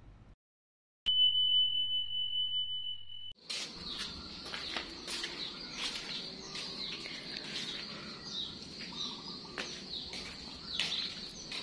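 A steady, high electronic beep held for about two seconds. Then many small birds chirping over steady outdoor background noise, with a faint unbroken high-pitched tone under them.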